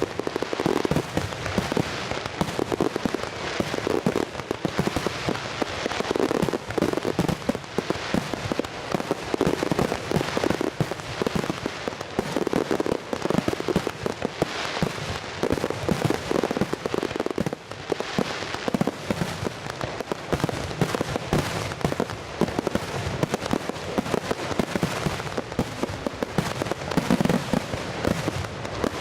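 Fireworks display going off in a dense, continuous barrage of bangs with no pauses between them.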